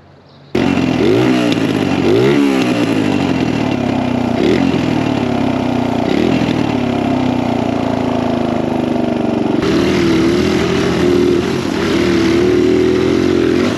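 Dirt bike engine under riding load, revving up and down repeatedly through the first few seconds, then running steadier with a slight waver in pitch.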